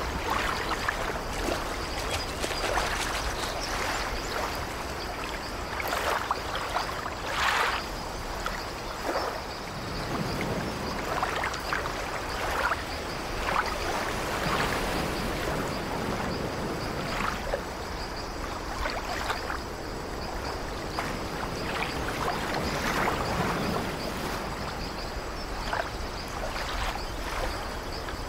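Small sea waves washing in and splashing at the shore, a steady wash of water broken by frequent short splashes.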